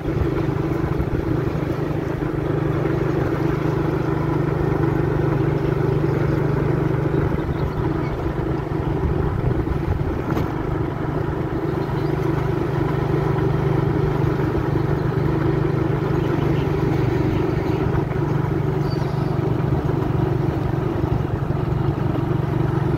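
Vehicle engine running at a steady speed on the move, a constant low hum with wind and road noise over it.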